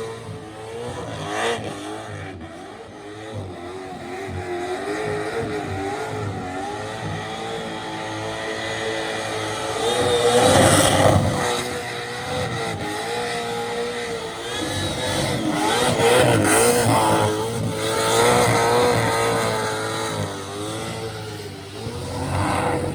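A burnout car's engine held at high revs, its pitch wavering up and down as the throttle is worked, over the rough noise of the rear tyres spinning. It gets loudest about ten seconds in and again about sixteen to eighteen seconds in.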